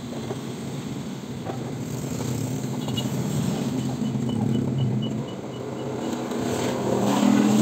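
Small motorcycle engine running steadily, getting louder toward the end. A faint series of short high beeps sounds in the middle.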